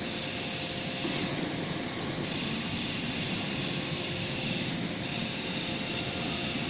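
Steady machinery noise, an even hiss with a faint hum.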